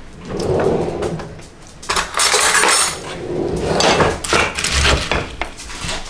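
A spatula and a metal spoon scraping and scooping sticky chocolate-coated cornflakes in a mixing bowl, in several strokes that rasp against the side of the bowl.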